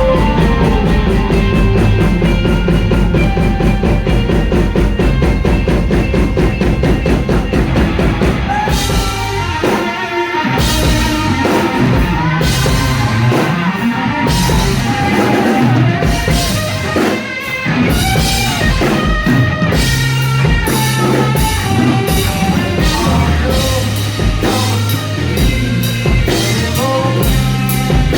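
Rock band playing live with no vocals. Distorted guitar and bass hold a dense chord for the first eight seconds or so. Then the drum kit comes in with hard hits, and a lead guitar plays bending notes over it.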